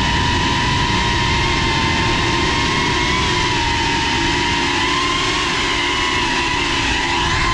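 GEPRC CineLog 35 cinewhoop's motors and propellers whining at a steady pitch that wavers slightly, heard from on board the drone over a wide rushing hiss.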